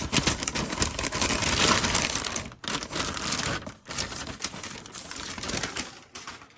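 Tissue paper and plastic packaging crinkling and rustling as a package is unwrapped by hand, with many small clicks and crackles, loudest in the first couple of seconds and then quieter.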